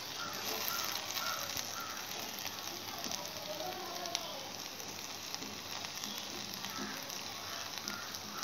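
Potato slices sizzling as they roast in oil in a pan, with a spatula scraping and tapping against the pan now and then as they are turned.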